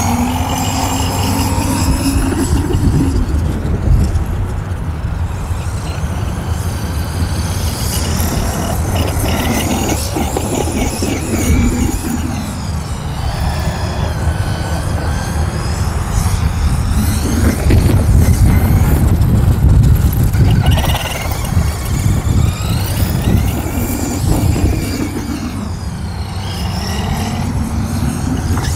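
Traxxas E-Revo 2.0 RC monster truck's brushless electric motor and drivetrain whining, the pitch rising and falling again and again as the throttle is worked. A steady low rumble runs underneath.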